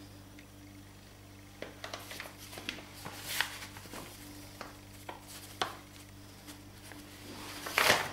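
Hands kneading roscón dough on a granite countertop: soft pats, slaps and rubbing. A flour bag rustles as flour is shaken over the dough, loudest about three seconds in and again near the end.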